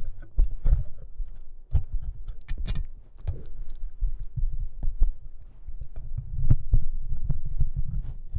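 A Boston Terrier puppy chewing and pawing at a microphone in its shock mount, picked up through that microphone as irregular low thumps and knocks with sharp clicks from teeth on the mount, a cluster of clicks about two and a half seconds in.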